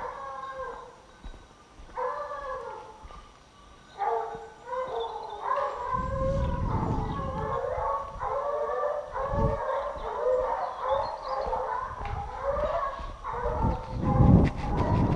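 Several hunting hounds baying at a wild boar held at bay, in separate calls at first and then overlapping steadily from about four seconds in. Low rumbling handling noise on the microphone joins from about six seconds in.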